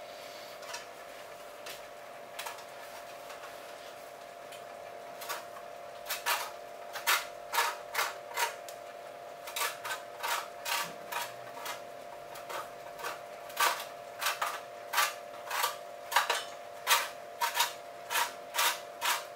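Lemon rind being grated on a metal hand grater for zest: short grating strokes that begin about five seconds in and come irregularly, about two a second, over a steady hum.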